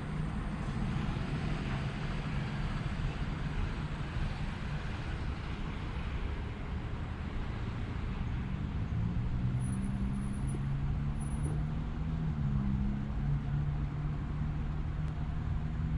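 Roadside traffic: a steady low engine rumble, with the tyre hiss of a passing vehicle swelling in the first few seconds and the engine note shifting in pitch a little after the middle.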